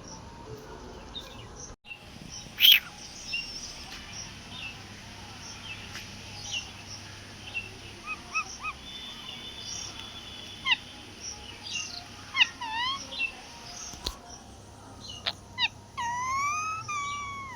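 Parrot calling: a string of short chirps and whistles, several sliding down then up in pitch, with one loud, sharp call a few seconds in and a quick run of swooping whistles near the end.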